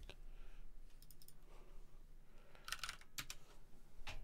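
Faint computer keyboard keystrokes in a few short clusters as a search query is retyped.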